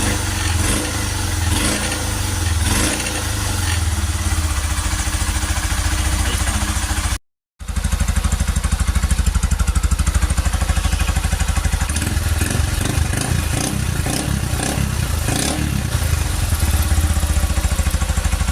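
Honda CG150 Cargo single-cylinder four-stroke engine idling steadily, with a brief break about seven seconds in. It runs without the knocking it had before: the cam sprocket disc bolt has been tightened and the timing chain and valve rockers adjusted.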